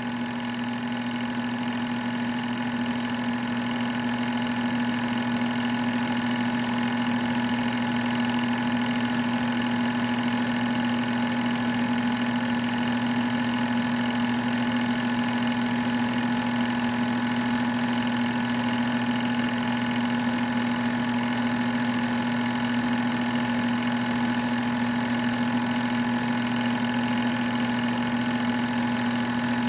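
Sears Tower home-movie projector running, its motor giving a steady, even buzzing hum with no change in speed.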